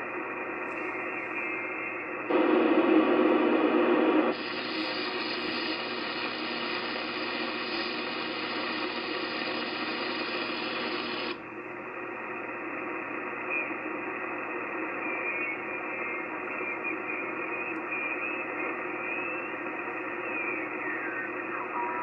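Receiver hiss and static of the 80 m band from an Icom HF transceiver's speaker, as the tuning knob is turned between stations. The hiss gets louder and brighter from about two seconds in, then drops back to a duller hiss after about eleven seconds. Near the end, faint whistles slide down in pitch as the tuning passes over signals.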